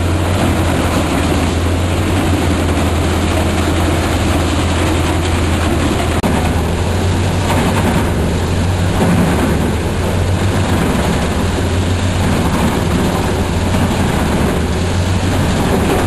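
Starchl U-1200 crane-fed drum wood chipper running under load, chipping whole logs: a steady heavy low drone under a dense, continuous noise of wood being cut into chips.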